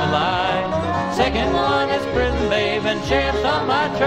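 Bluegrass band playing an instrumental passage: banjo, acoustic guitar and upright bass, with a lead line of sliding, bending notes over them.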